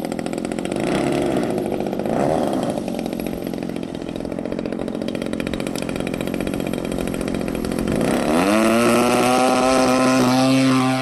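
Engine of a radio-controlled Giles 202 aerobatic model airplane running at low throttle while it taxis on the ground. About eight seconds in it rises quickly in pitch and holds at full throttle for the takeoff run.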